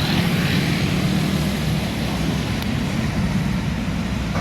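Large bus engine running with a steady low rumble, with tyre and road noise.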